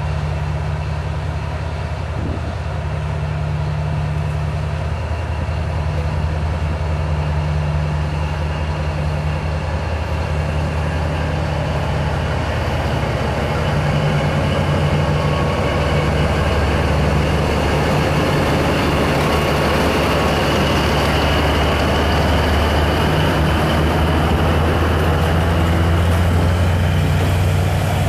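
Vietnam Railways D19E diesel-electric locomotive's engine running with a steady low hum as it pulls the passenger train slowly away. It gets louder from about halfway through as the locomotive and then its coaches roll past close by on the rails.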